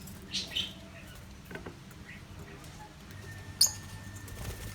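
Pet parrots giving short, sharp chirps: a few soft ones near the start and one loud squawk about three-quarters of the way through.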